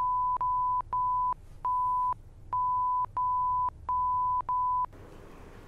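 Censor bleep: a steady high-pitched bleep tone chopped into about eight short pieces, stopping about five seconds in, masking a string of swear words.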